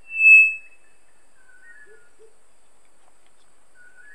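Male three-wattled bellbird calling: one loud, clear bonk note lasting about half a second at the start, followed by a few faint, thin whistled notes.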